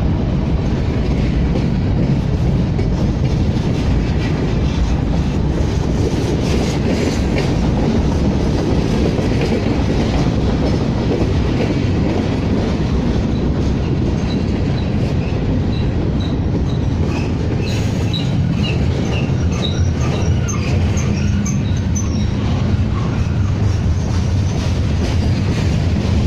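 A CSX mixed freight train's cars rolling past close by, with a steady rumble and the clatter of wheels over the rails. Short, high wheel squeals come and go in the latter half.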